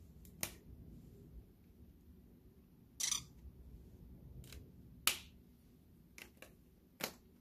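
Several sharp plastic clicks and taps, irregularly spaced, from a marker pen being handled over a ring-bound planner, its cap worked and the pen tip set to the page. The loudest click comes about five seconds in, over a faint low room hum.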